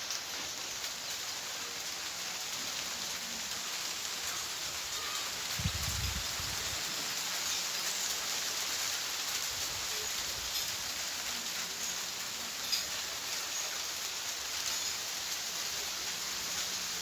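Steady hiss of rain falling outdoors, with a brief low rumble about six seconds in.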